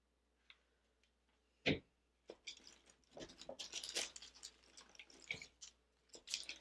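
Faux ruscus leaves and dry grapevine rustling and crackling as stems are pressed and tucked into a grapevine wreath, with one sharp click about a second and a half in.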